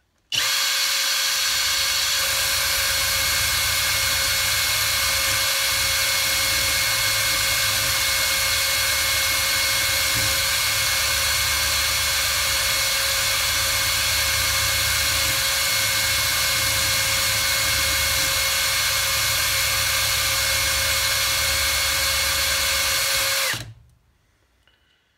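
Cordless drill clamped in a vise, spinning a cloth buffing mop loaded with polishing compound, runs at a steady speed with a constant whine while an alloy engine cover is pressed against the mop. It starts abruptly at the very beginning and stops with a short wind-down near the end.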